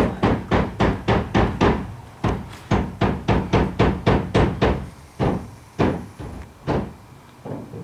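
A rapid series of sharp hammer-like blows, about four a second, pausing briefly after about two seconds, then resuming and thinning out to a few spaced strikes near the end.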